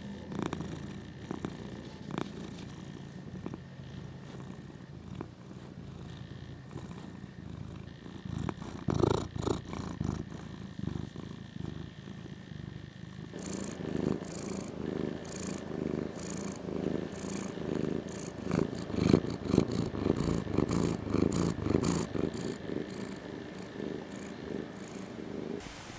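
Domestic cat purring close to the microphone in steady rhythmic pulses, growing louder and more strongly pulsed about halfway through.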